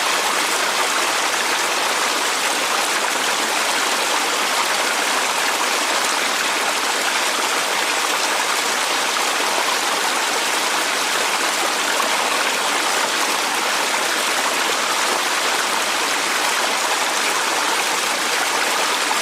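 Waterfall sound effect: a steady, unbroken rush of falling water.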